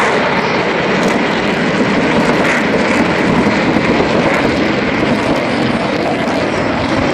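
Blue Angels F/A-18 Hornet jets flying past, a loud, steady jet engine noise.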